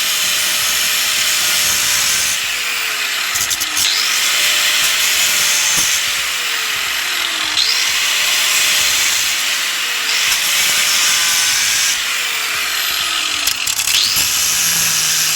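Angle grinder cutting into a seized, rusty bolt. The motor's whine sags under load and picks up again several times as the disc bites and eases off.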